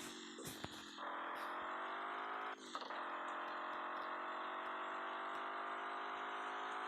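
A vehicle engine running steadily, its pitch slowly rising, with a short break about two and a half seconds in.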